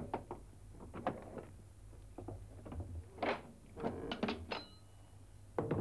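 A series of knocks and clunks, with a brief metallic ring about four and a half seconds in, as an old chest is handled and opened, with the loudest clunk near the end.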